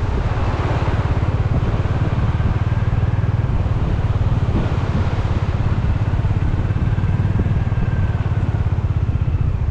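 Motorcycle engine running steadily under way, a fast even beat.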